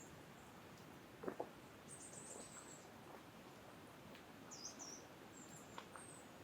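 Small birds chirping: short, high-pitched calls about two seconds in and again around four and a half to six seconds, over a faint steady hiss of wind. A couple of soft knocks sound about a second in.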